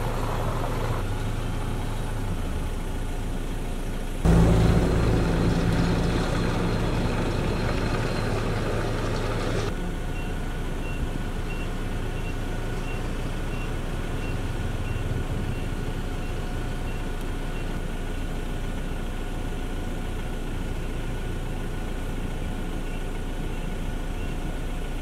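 Diesel engines of dump trucks and a small bulldozer running steadily. About four seconds in the engine noise gets suddenly louder and heavier for about six seconds, then settles. From then on a faint high electronic beep repeats evenly, about three beeps every two seconds, over the engines.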